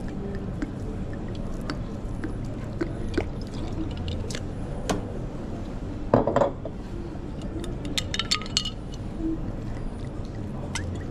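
Kitchen clatter: dishes and utensils clinking and knocking over a steady background hum, with a louder clatter about six seconds in and a quick run of clinks about eight seconds in.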